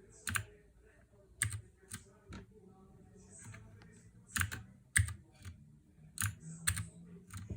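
Keys being pressed one at a time on a counterfeit Ducky One 2 Mini mechanical keyboard with clicky blue-type switches, sold as Cherry MX Blue. About a dozen sharp, separate clicks come at an irregular pace, not fast typing.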